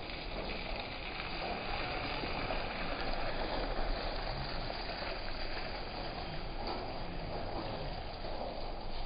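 Steady hiss of rain mixed with traffic on a wet street.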